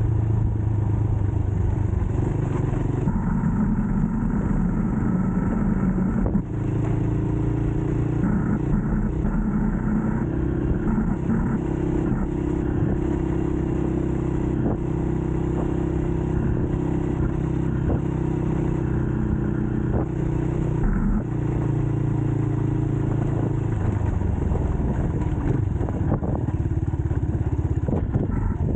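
Rusi KRY 200cc dirt bike's engine running under way, its pitch stepping up and down several times as engine speed changes, with a few short knocks.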